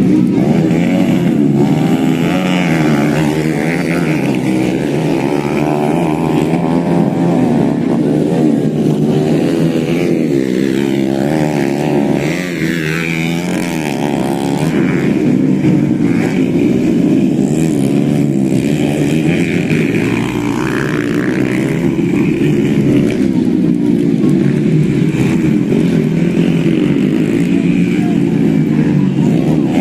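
Modified underbone race motorcycle engines revving, the pitch rising and falling again and again without a break while the engines are warmed up before a grasstrack race.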